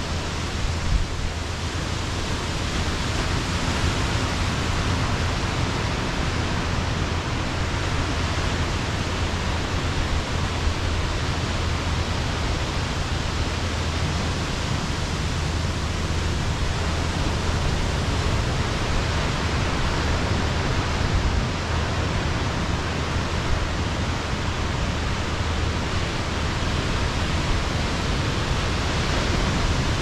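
Steady wash of ocean surf breaking along the shore below, an even noise with a constant low rumble beneath it.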